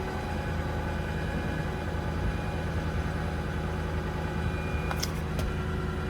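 6.4 Power Stroke V8 diesel engine idling steadily. A few faint clicks come about five seconds in.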